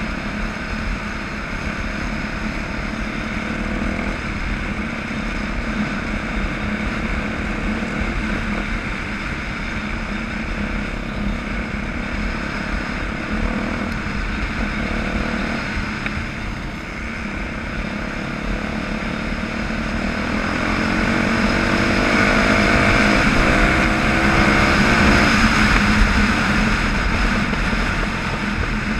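Off-road motorcycle engine running under way on a paved road, heard from on board the bike itself with wind rushing past. About two-thirds of the way through, the revs climb and the engine grows louder as the bike speeds up.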